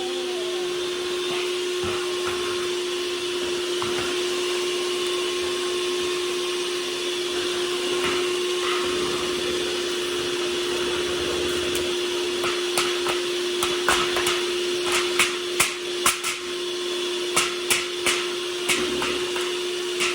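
Electric kitchen mixer running steadily, beating cake batter. From about halfway through, the beaters knock against the bowl again and again. The motor is switched off right at the end and its hum drops away.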